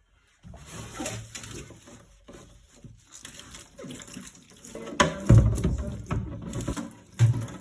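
Kitchen cleaning sounds: water running and splashing while things are handled and knocked about, busiest about five seconds in, with a sharp knock near the end.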